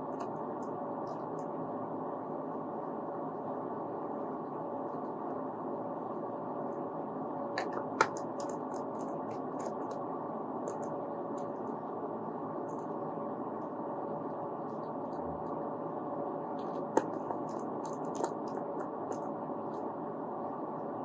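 Steady background hiss with a few sharp small clicks, one about eight seconds in and two more near the end: small screws being driven back into a laptop's plastic bottom cover with a screwdriver.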